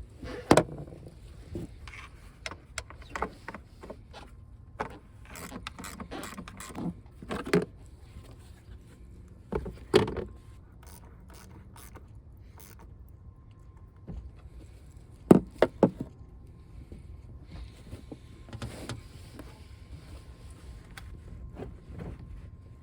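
Irregular clicks, knocks and clatter of hand work in a pickup's engine bay: tools and parts being handled while components are removed. The sharpest is a quick run of three or four knocks about two thirds of the way in.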